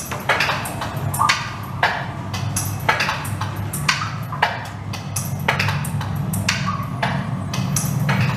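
Footsteps on a hard floor, about two steps a second, over a steady low hum.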